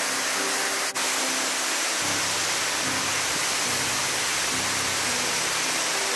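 Steady rush of Miuka (Cheohee) Falls, water cascading down a broad rock face, with soft background music underneath. The water noise dips for an instant about a second in.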